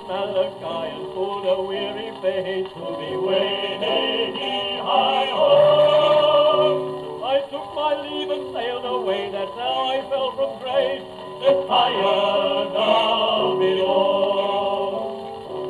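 Acoustic gramophone playing an operatic vocal record through a new 3D printed soundbox fitted with a soft tone needle. The sound has little treble above the upper mid range.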